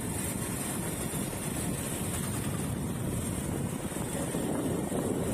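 Steady wind rumble on the microphone mixed with the running noise of the vehicle he rides on.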